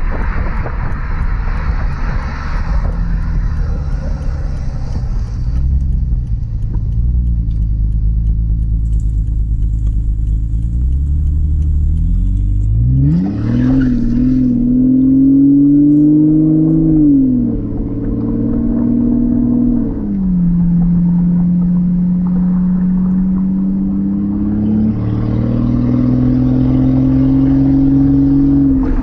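Straight-piped 5.8 L V12 of a 2002 Mercedes-Benz S600 cruising, then accelerating hard about halfway through, its pitch rising steeply. The pitch falls back twice as the gearbox shifts up, settling into a steady drone that climbs slightly near the end.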